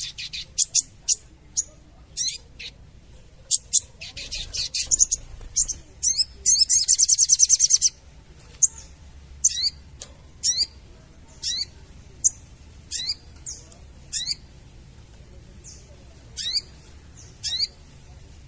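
Sogon bird (crested jay) calling: quick clusters of sharp high chirps, then a rapid chattering rattle about six seconds in lasting nearly two seconds, then single steeply falling whistled notes about once a second.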